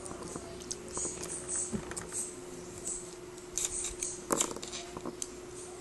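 Small plastic toy pieces handled and clicked together on a table: scattered light clicks and scratches, with a cluster of louder clicks about four seconds in.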